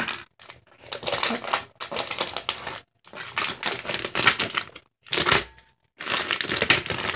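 A wooden popsicle stick scraping and clacking against a stainless steel bowl in several short bursts of rapid clicking, stirring a chunky mix of glitter glue and shaving cream for slime.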